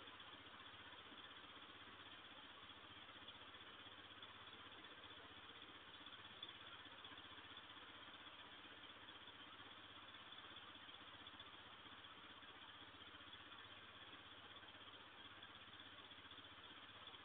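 Near silence: a steady faint hiss with a low hum underneath, unchanging throughout.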